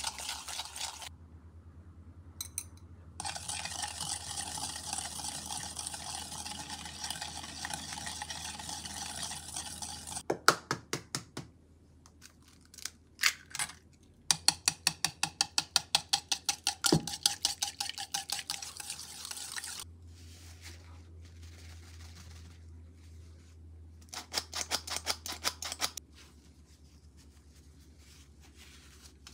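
Cake batter being mixed in a stainless steel bowl: steady stirring at first, then runs of quick, rhythmic wire-whisk strokes against the bowl with a few sharp clicks. Near the end comes a short run of strokes from a squeeze flour sifter worked over the bowl.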